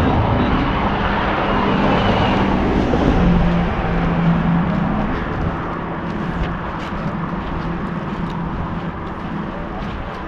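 A motor vehicle's engine droning past with a low hum over a steady rushing noise. It is louder for the first few seconds, then fades.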